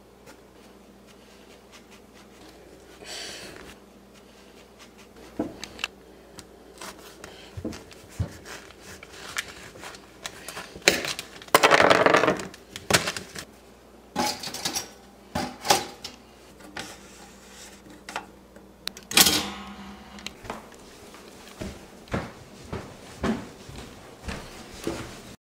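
Kitchen handling noises as a bagel is cut with a knife and put together on a countertop: scattered clicks and knocks, a louder noisy stretch about twelve seconds in, and a sharp knock just before twenty seconds.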